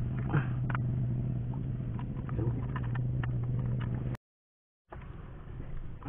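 Light knocks and clicks of a rock being handled in a small wooden boat over a steady low hum; the sound cuts out completely for a moment about four seconds in and comes back quieter.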